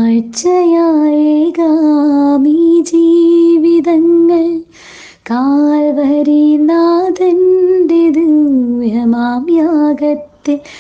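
A woman singing a slow Malayalam song solo, holding long notes with a slight waver in pitch, with a short break for breath about five seconds in.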